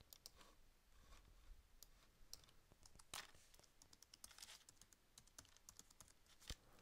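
Faint typing on a computer keyboard, with scattered clicks and a couple of sharper ones.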